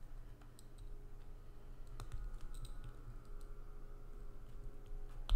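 Fingernails clicking against a small sterling silver heart locket as they work at its clasp: scattered faint clicks, one louder about two seconds in, and a sharp click at the very end as the locket springs open.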